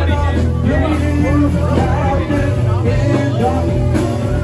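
Live rock band playing a slow song, with electric guitar, bass and drums: a steady bass under a melodic line that bends in pitch.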